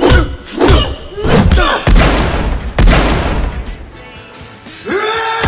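Staged fight hits: heavy thuds and smacks of punches landing, about five in the first three seconds, over music. A held musical tone comes in near the end.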